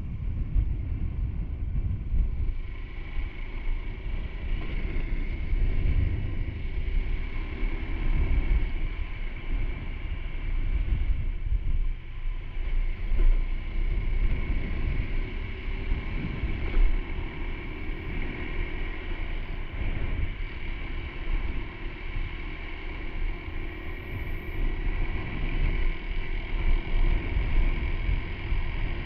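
Honda Super Cub C125's single-cylinder four-stroke engine and exhaust running steadily on the move, with wind buffeting the microphone.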